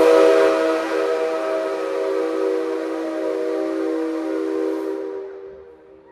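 A C57 steam locomotive's whistle blowing one long blast: a chord of several steady tones over a hiss. It stops about five seconds in and fades out in echo through the large hall.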